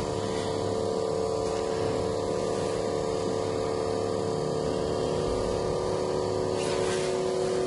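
Built-in vacuum pump of a heated LCD separator machine running with a steady, even hum of several tones, holding an iPhone screen assembly down on the plate by suction.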